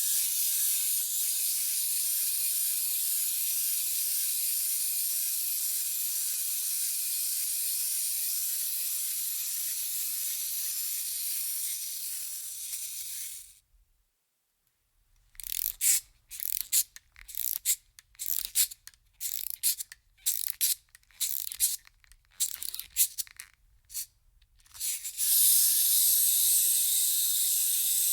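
Hissing sound effects: a long, steady hiss, then a second of silence, then a quick series of about a dozen short, sharp hisses like spray bursts, and from about 25 seconds on another steady hiss.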